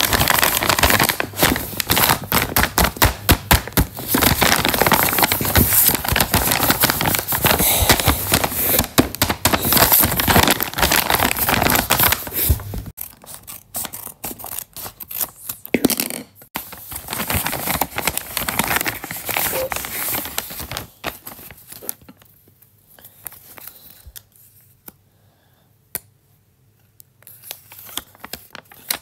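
A homemade paper bag crinkling loudly as it is handled and squeezed for about the first half, then scissors cutting the paper open, followed by softer rustling and clicks as a small folded paper note is unfolded.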